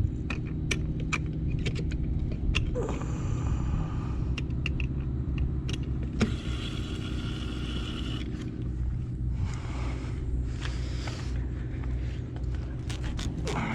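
Cessna 172's piston engine idling steadily on the ground, with scattered clicks and three stretches of hiss over it.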